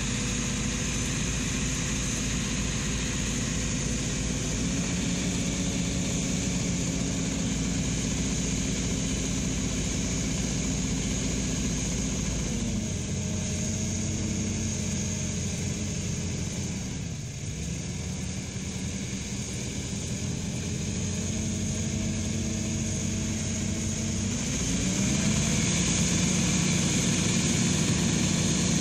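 Lindner transporter's diesel engine running steadily at working revs, driving the lobe pump that feeds the slurry tank's jet. The revs drop a little before halfway, sag briefly lower, then climb again and grow louder near the end as the jet throws slurry farther.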